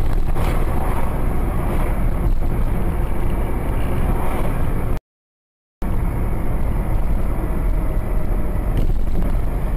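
Steady engine and road noise of a moving car, as heard from inside the cabin through a dashcam's microphone. The sound cuts out completely for under a second about halfway through.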